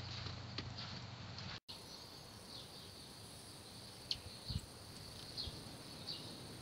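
Outdoor garden ambience in wet, windy weather: a steady hiss with short, high bird chirps, each a quick falling note, scattered about a second apart. A brief gap in the sound about one and a half seconds in.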